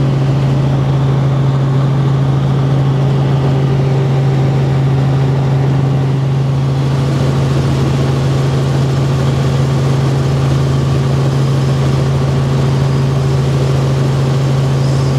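Helicopter in flight heard from inside the cabin: a steady, loud engine and rotor drone with a strong low hum.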